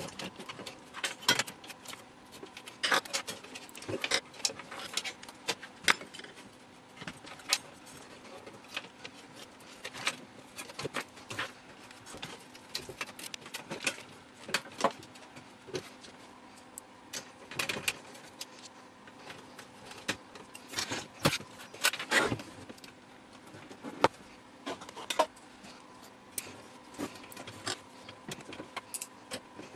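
Irregular clicks, knocks and metallic clinks of sheet-metal chassis panels and circuit boards being handled and fitted together as a hi-fi unit is reassembled.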